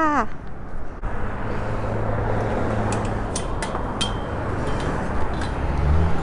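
Steady rushing wind noise on the phone microphone, with a few light metallic clicks and rattles from a chain-link gate's latch being worked by hand midway, and a low bump of handling near the end.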